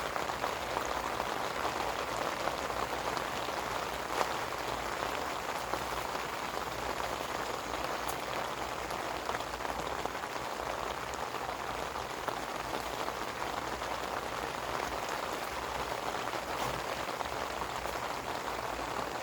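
Steady rain falling, an even hiss with scattered sharper drop hits, one louder hit about four seconds in.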